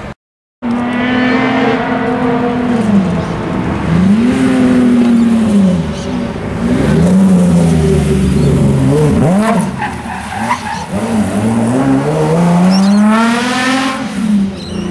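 Chrysler Valiant VH Charger engine accelerating hard, its revs climbing and dropping again and again through gear changes, with some tyre squeal. The sound cuts out for about half a second just after the start.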